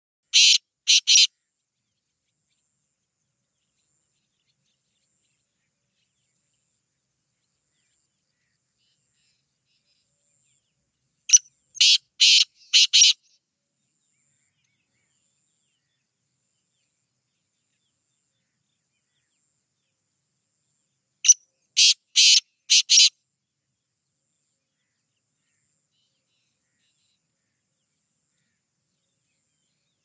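Black francolin (kala teetar) calling three times, about ten seconds apart; each call is a quick run of three to five short, high notes lasting a second or two.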